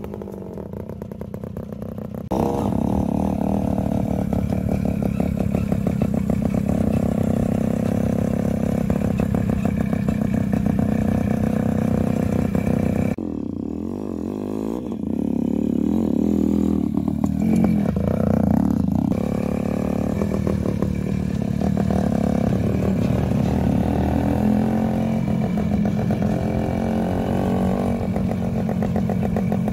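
Kawasaki GTO 110 two-stroke single-cylinder motorcycle engine running under way. It gets suddenly louder about two seconds in, and revs up and down about halfway through.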